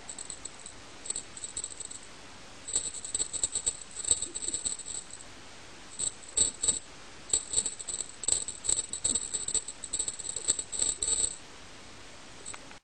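A cat's toy ball jingling and rattling in irregular bursts as it is batted and rolled, a few short jingles at first, then busy runs that stop a little over a second before the end.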